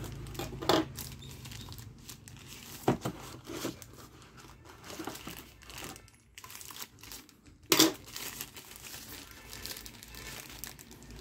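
Plastic wrapping bag crinkling and rustling as hands handle the wrapped access point and lift it from its packaging tray. A few sharper crackles stand out, the loudest about two-thirds of the way through.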